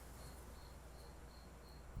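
Faint cricket chirping steadily, short high chirps about three a second, over a low hum.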